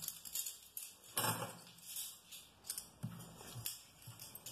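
Steel spoons clinking against each other and knocking on a wooden tabletop as they are picked up and gathered, in a few soft, separate clinks and knocks.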